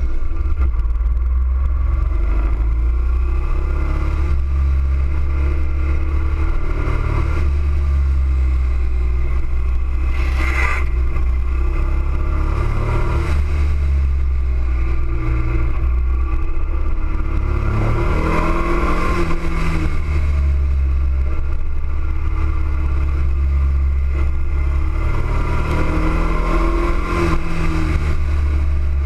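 Motorcycle engine recorded onboard while riding, its revs rising and falling in smooth glides, under a heavy low wind rumble on the microphone. A brief click sounds about ten seconds in.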